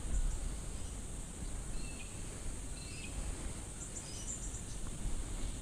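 Creekside bush ambience: a steady high-pitched insect drone, with a few short bird chirps and a low rumble underneath.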